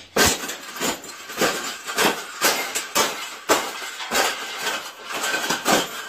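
A wire bird cage being stamped flat by someone jumping on it, the bars clanking and rattling with each landing, about two landings a second.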